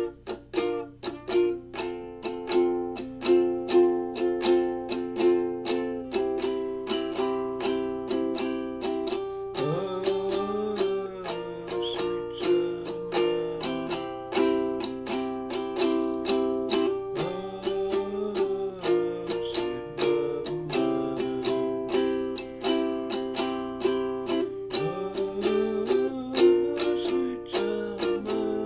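Donner DCF-100 ukulele played solo, picked in a quick, steady run of single notes over ringing chords.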